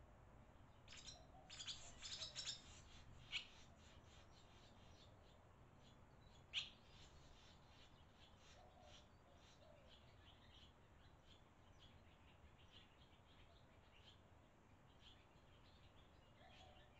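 Barn swallows chirping at the nest: a flurry of short high chirps in the first few seconds, one sharp louder chirp about six seconds in, then faint scattered chirps.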